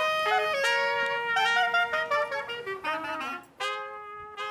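Clarinet and trumpet playing a melody together in long held notes that step from pitch to pitch. The music dips briefly about three and a half seconds in before the next phrase begins.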